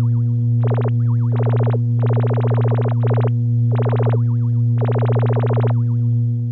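Electronic science-fiction sound effect: a steady low electronic hum under a faint warbling tone, broken about six times by short bursts of rapid electronic chirping.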